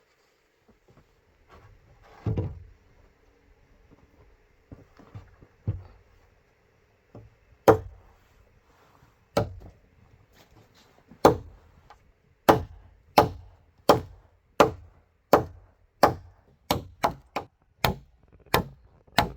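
Bamboo being chopped with a blade. One heavy thump and a few light knocks come first, then sharp chops that settle into a steady rhythm of about one and a half strokes a second, quickening near the end.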